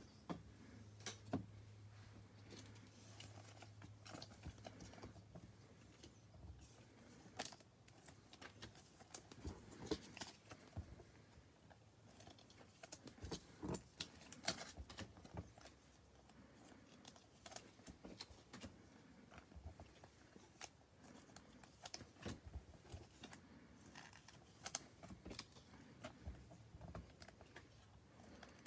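Faint, irregular taps, clicks and slides of trading cards being handled: dealt one by one onto a table mat and squared into piles.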